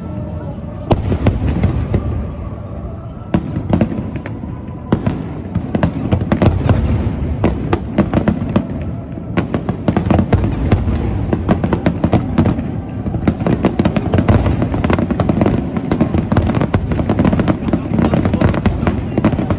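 Fireworks display: many bangs and crackling bursts in quick succession over a continuous low rumble, growing denser about five seconds in, as in a finale barrage.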